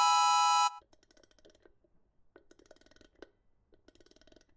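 A held musical note from the intro music stops sharply under a second in. Three short stretches of faint clicking and rustling follow.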